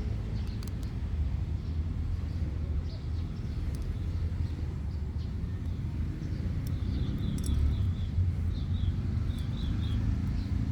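A steady low outdoor rumble, with small birds chirping in short quick groups from about seven seconds in.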